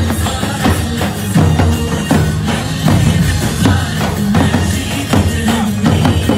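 Loud music with a steady drum beat over a sustained bass line.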